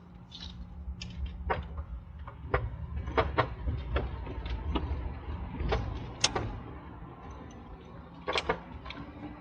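Low rumble inside a moving vehicle, with scattered sharp clicks and knocks. The rumble grows louder through the middle and eases off near the end.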